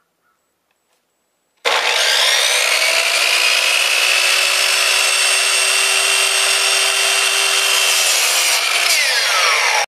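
Electric power saw starting abruptly and cutting wood with a loud, steady motor whine, then falling in pitch as it winds down near the end.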